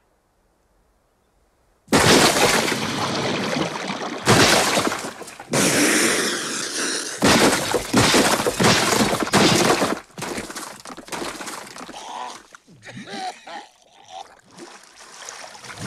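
Lake ice breaking apart: near silence, then a sudden loud crash about two seconds in, followed by repeated shattering, crunching crashes of ice that die down to quieter, scattered sounds after about ten seconds.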